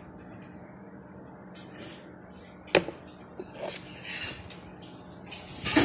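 Handling noise from a red Focusrite Scarlett Solo audio interface being turned over in the hands above its packaging: scattered light knocks and rustles, a sharp click nearly three seconds in, and a louder clatter near the end, over a faint low hum.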